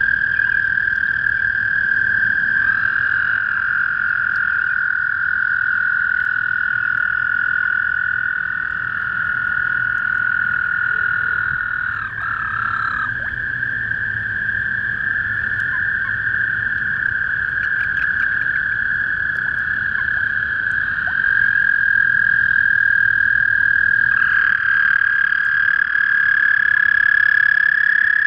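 A chorus of toads trilling at a pond: long, unbroken high trills at slightly different pitches overlapping one another. One trill drops out about halfway through, and another joins near the end.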